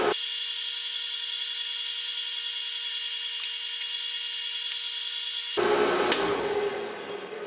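Grizzly 5963 surface grinder's 3/4 HP permanent split capacitor motor running steadily with an even whine, now wired for 230 V and running without overheating. About six seconds in there is a click as the stop button is pressed, and the motor begins to wind down.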